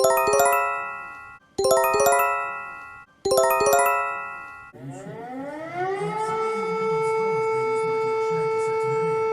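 Emergency alert alarm: an electronic multi-note chime sounds three times, each dying away, then a siren winds up in pitch and holds a steady wail.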